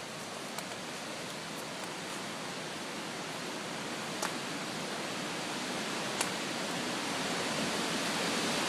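Storm wind blowing through trees as a steady rustling hiss that slowly grows louder, with two brief clicks about four and six seconds in.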